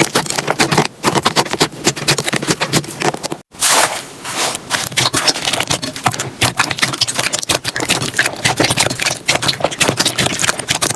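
Slime being squeezed and pressed by hand, giving a dense run of crackling, popping clicks. The sound breaks off for a moment about three and a half seconds in, then carries on.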